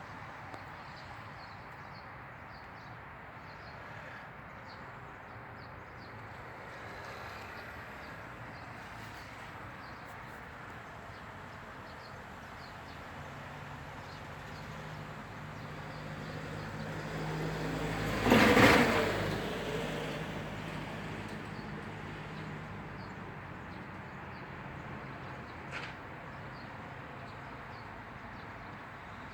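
A vehicle passes by: its hum builds up over several seconds, is loudest about two-thirds of the way through, then fades away, over a steady background hiss. A short sharp tick comes near the end.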